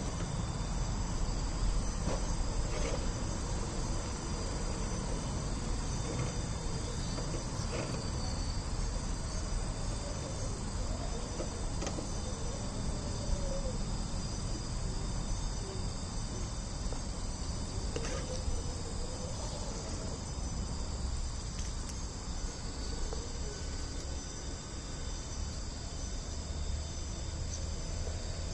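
Steady chirring of insects, several high continuous tones, with a faint low rumble and a few soft clicks underneath.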